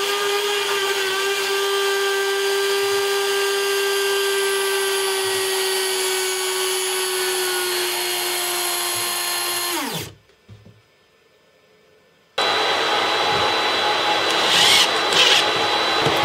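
Bosch GKF 600 router spindle on a CNC machine milling 8 mm aluminium: a steady high whine whose pitch slowly sinks as the machine struggles in the cut. About ten seconds in, the whine falls away sharply as the spindle stops, and there is near silence for about two seconds. Then another steady machine noise starts, with a few knocks near the end.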